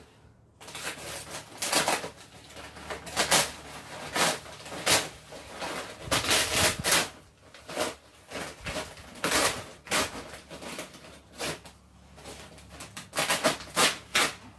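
A bag of play sand being handled, with a run of irregular rustling and gritty scraping sounds, some short and some about a second long.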